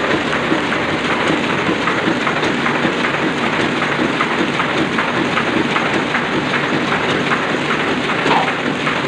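Sakurai Oliver 66 sheet-fed offset printing press running, a steady mechanical clatter with a regular ticking beat.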